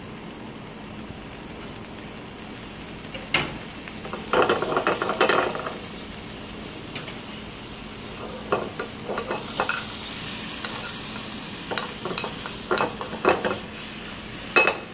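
Apple cubes sizzling gently in a nonstick frying pan over a gas flame, with a spoon scraping and clinking against the pan in several short bunches. A sharp knock near the end as the pan is shaken.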